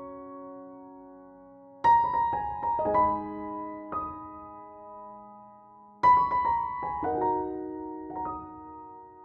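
Background piano music: soft phrases of struck notes that ring and die away, with new phrases starting about two and six seconds in.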